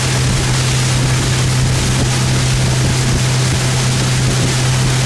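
150 hp Mercury Verado outboard running steadily at speed with a constant low drone, over the rush of the wake and wind on the microphone.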